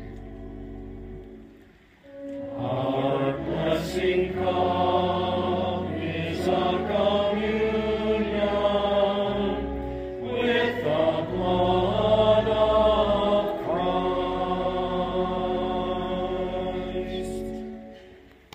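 Choral music: voices singing together over long held bass notes. It comes in about two seconds in after a quieter held chord and fades out near the end.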